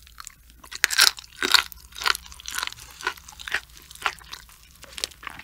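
Close-up chewing of raw sturgeon sashimi with its crunchy cartilage: irregular crunches and wet clicks, loudest about a second in.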